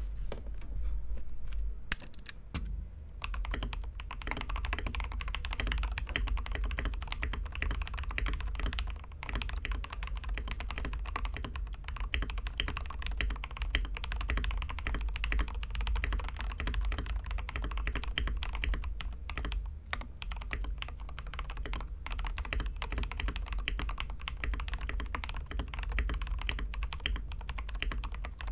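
Fast, continuous typing on a Tecware Veil 87 TKL mechanical keyboard with lubed JWK Lagoon tactile switches, Akko ASA-profile keycaps and a tape-modded PCB, giving a dense stream of keystrokes. A few scattered keystrokes in the first couple of seconds come before the steady typing starts. A steady low hum lies underneath.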